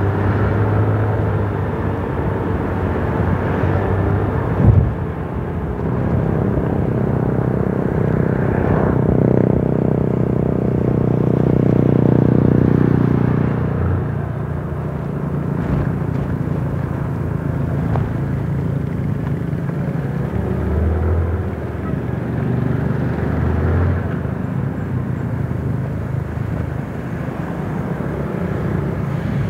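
Moving vehicle on the road: steady wind and road rumble with engine hum. An engine drone swells from about nine to thirteen seconds in, and there is a single knock about five seconds in.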